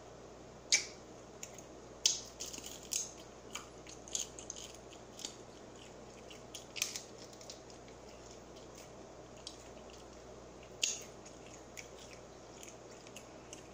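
Close-up mouth sounds of eating fried chicken: chewing and sporadic sharp wet smacks as meat is sucked and picked off the bone, the loudest about a second in and again late on.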